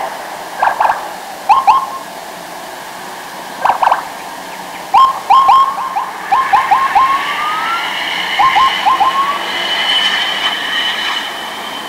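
Police pickup's siren giving short rising chirps in quick bursts of two to four, with one longer upward sweep about seven seconds in.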